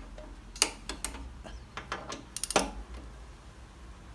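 Ratchet and socket working a motorcycle front brake caliper mounting bolt: a few sharp metallic clicks and clinks, then a quick run of clicks about two and a half seconds in.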